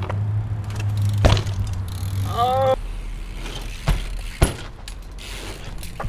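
BMX bikes on concrete ledges: a grind along a concrete ledge, then sharp knocks as pegs and tyres hit the concrete, several times. There is a brief shout a little before halfway.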